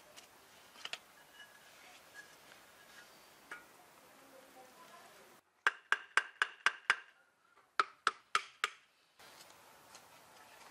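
A trowel tapping a hollow clay brick down into wet mortar: a quick run of about seven sharp clinking knocks, a short pause, then four more, each with a brief ring. Before them come faint scrapes and small ticks of the trowel in the mortar.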